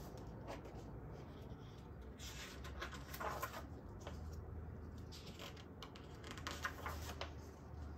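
Faint rustling of paper as a picture book is opened and its pages are turned and flattened, over a steady low hum.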